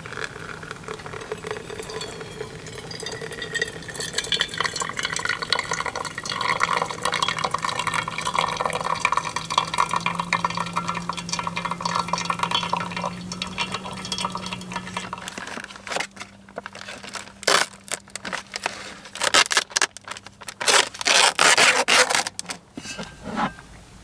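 Hot water poured in a thin, steady stream from an MSR Windburner stove pot onto a paper drip-bag coffee filter in a tumbler, running for about fifteen seconds. Then comes a run of loud rustles and knocks as things are handled, the loudest near the end.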